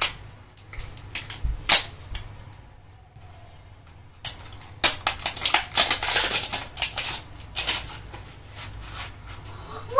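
A small cardboard box of watercolour paint tubes being opened by hand: sharp clicks and snaps of the card, then from about four seconds in a few seconds of dense crackling and rustling of the packaging.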